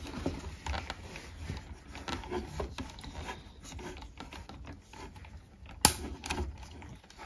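Wires being handled and pushed into lever-nut wire connectors: faint rubbing and small clicks throughout, with one sharp click near the end as a connector lever snaps shut.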